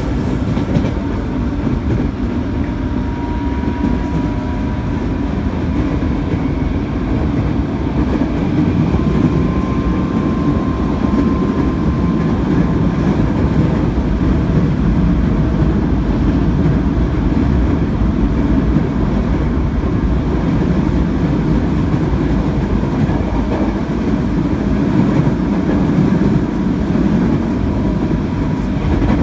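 JR Musashino Line 205 series electric train (the 内扇形, internal-fan traction motor version) running at speed, heard from inside the car by the door: a steady rumble of wheels on rail. A faint high whine rises and fades twice.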